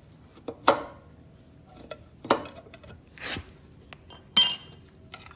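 A metal pry tool clinking and scraping against a stuck valve cover on a Honda GCP160 lawnmower engine as it is levered off. There are a few separate knocks, and the loudest is a ringing metallic clink near the end.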